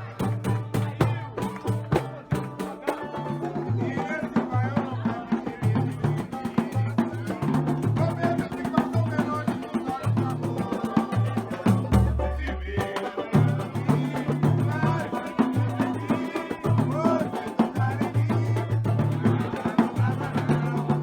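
A live samba group playing: busy, rapid hand percussion over a stepping bass line, with melodic lines above.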